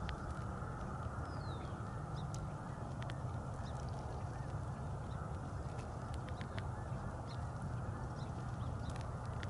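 Green-winged teal filter feeding in shallow water: a steady low rush of dabbling and water with scattered short ticks, and one brief falling call about a second and a half in.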